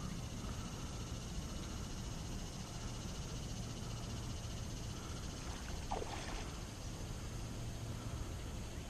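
Quiet, steady outdoor background by the water, a low hum under a faint hiss, with one short faint chirp about six seconds in.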